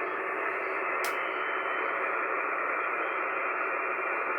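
Shortwave receiver hiss: steady band noise filling the narrow single-sideband voice passband while listening for a reply, with one sharp click about a second in.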